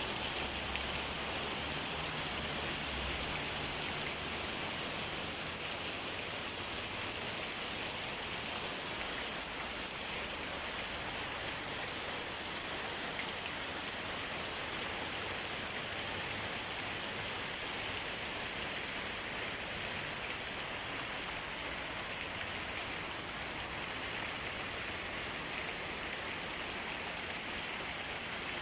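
Heavy tropical downpour: a steady, even hiss of rain falling hard.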